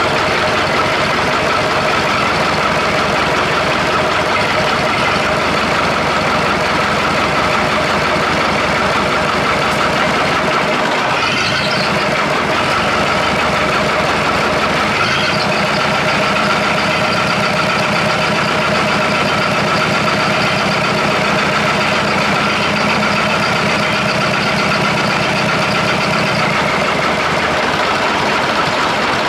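Perkins four-cylinder diesel engine of an old Chamberlain tractor crane running steadily on all four cylinders at a raised idle, wound up because it cuts out when set too low. Its note shifts slightly about eleven seconds in.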